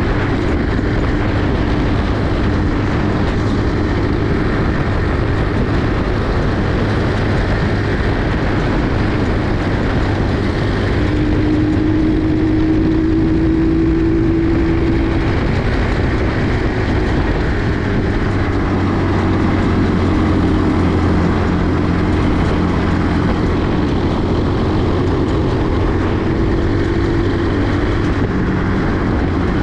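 Small 50cc four-wheel buggy engine running steadily while riding, its pitch drifting a little higher for a few seconds near the middle and again later on, over a constant rush of noise.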